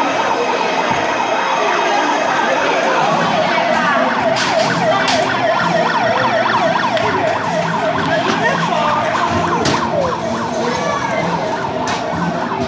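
Fire-engine siren on a children's play fire truck, sounding a fast yelp that sweeps up and down in pitch a few times a second without a break.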